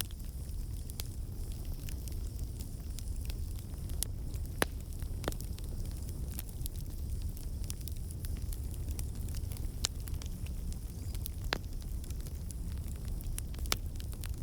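Campfire burning with a steady low rumble and scattered sharp crackles and pops, a few of them louder than the rest.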